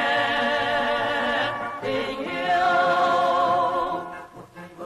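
Male vocal group singing, holding long notes with a slight vibrato; the singing stops about four seconds in.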